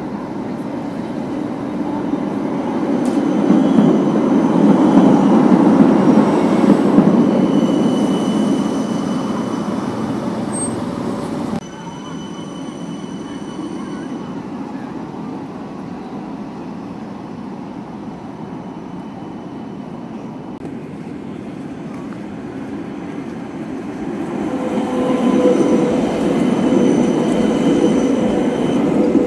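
City trams running on street track. The rumble of steel wheels on rail swells as a tram passes close by, with faint high squealing tones over it. The level drops suddenly about a third of the way in. A second tram rumbles past near the end with a steady whine.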